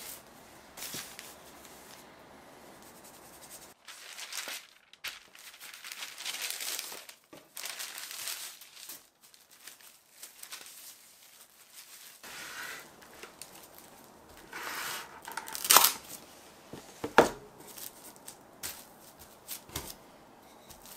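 Thin wrapping material, such as kitchen paper or film, crinkling and tearing in irregular bursts during kitchen preparation. Two sharp knocks come near the end.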